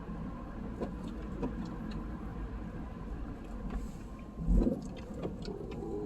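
Car cabin noise while driving on a snow-covered road: a steady low rumble of engine and tyres, with a louder thump about four and a half seconds in.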